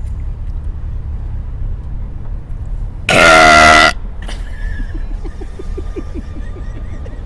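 A person belching once, very loud and just under a second long, about three seconds in, over the steady low rumble of a car's engine and road noise.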